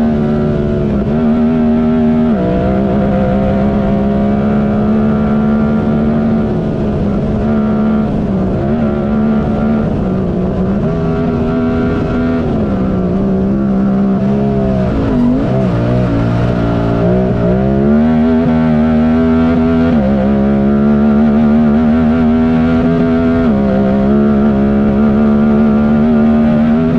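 Honda Talon race UTV engine running hard and continuously. Its note holds steady for stretches, drops about two seconds in, rises again around eleven seconds, sags deeply about halfway through and climbs back, in step with throttle and gear changes.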